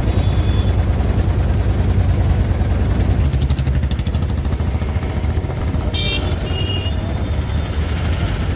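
Auto-rickshaw engine running steadily as it drives, heard from inside the passenger compartment as a loud low drone. Two short high beeps come about six seconds in.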